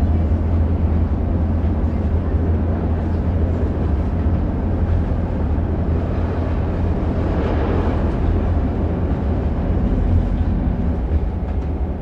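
Diesel railcar engine running with a steady low rumble. A rush of noise swells up and fades away around the middle.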